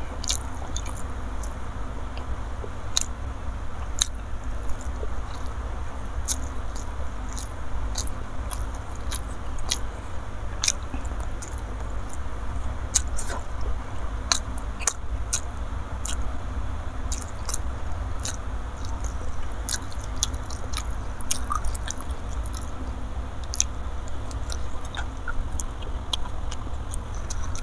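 Close-miked chewing of a mouthful of rice and balado fish roe eaten by hand, with wet mouth clicks and smacks scattered irregularly throughout, over a steady low hum.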